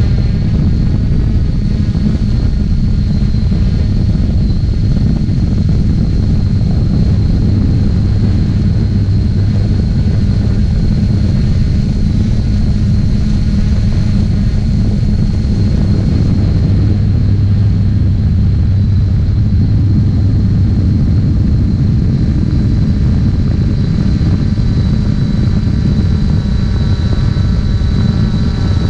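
3DR Solo quadcopter's electric motors and propellers running steadily in flight, recorded up close by the onboard camera: a loud, steady low hum with a high whine over it.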